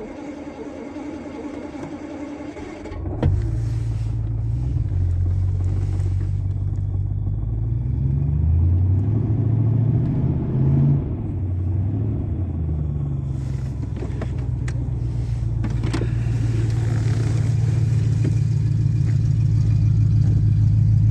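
Daimler car's starter motor cranking with a steady whine for about three seconds. Then the engine catches, is revved up and down a few times, and settles into a steady idle with the choke out on a cold start.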